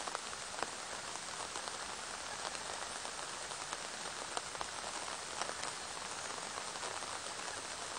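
Steady rain falling on garden foliage and a pond: an even hiss with many separate drops ticking through it.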